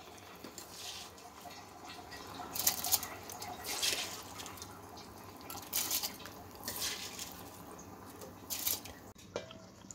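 Large pot of water at a rolling boil, bubbling, with several louder irregular splashy pops.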